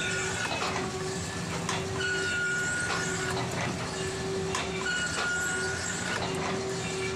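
Metal shaping machine cutting a steel bar, its ram taking a stroke about every three seconds: a steady motor hum, a high whine that comes and goes with each stroke, and sharp clicks as the ram reverses.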